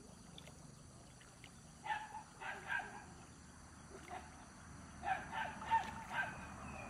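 A dog barking in two short runs of high yelps, the first about two seconds in and the second about five seconds in.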